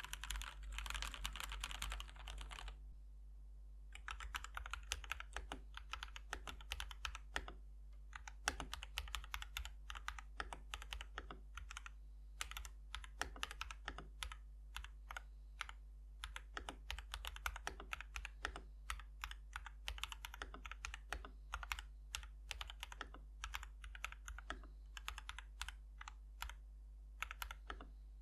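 Typing on a mechanical keyboard fitted with linear switches: a quick run of keystroke clacks, a short pause about three seconds in, then typing resumes.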